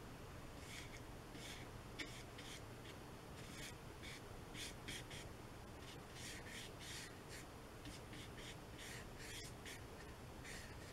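Wide flat paintbrush scrubbing across watercolour paper in short, repeated strokes: faint scratchy swishes a few times a second, with one sharp tick about two seconds in.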